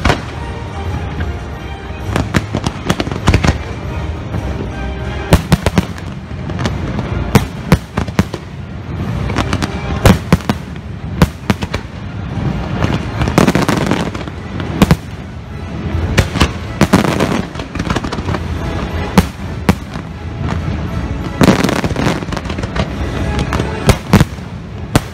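Fireworks show: shells and mines firing and bursting in rapid, irregular succession, loud bangs with crackling between them, over the show's music.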